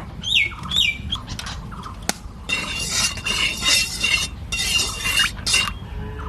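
Birds calling: two short chirps, then a run of harsh squawks in several bursts.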